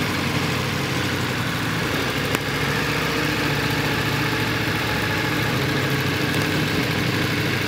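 Motorcycle engine running steadily at idle while the bike rolls along at idle speed. A single brief click comes a little over two seconds in.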